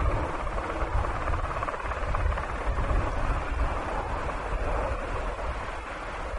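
Steady jet roar from a Grumman EA-6B Prowler, with wind buffeting the microphone as a low rumble underneath.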